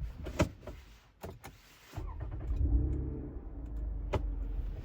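Car cabin nearly quiet with the engine switched off by its push-button start, a few sharp clicks, then about two seconds in a low engine rumble comes in suddenly as the engine is started again and runs.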